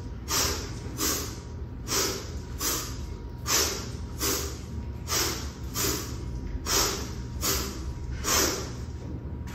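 A man's short, sharp power breaths through the nose and teeth, timed to the one-arm kettlebell swings, about one every 0.8 s.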